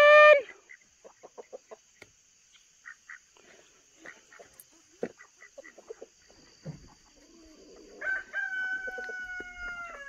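Free-range chickens clucking softly in short scattered calls, with the tail of a rooster's crow at the very start and another rooster crow of about two seconds near the end.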